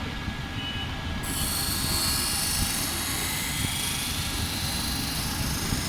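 Steady low rumble of a running machine, with a faint hiss above it.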